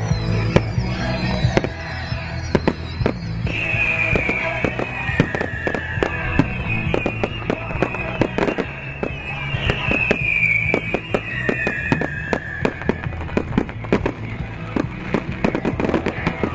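A fireworks display: rockets and shells bursting and crackling in quick succession, several bangs a second, with music playing underneath.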